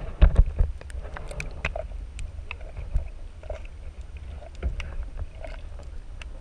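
Muffled underwater sound picked up through a camera's waterproof housing: a steady low rumble of moving water with scattered sharp clicks and knocks, the loudest few in the first second.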